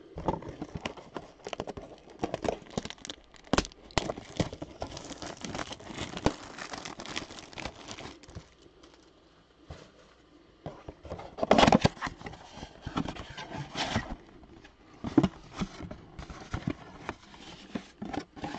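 Cardboard Topps Chrome Update mega box being handled and opened: rustling, scraping and small taps of cardboard, with a louder burst of handling noise about twelve seconds in.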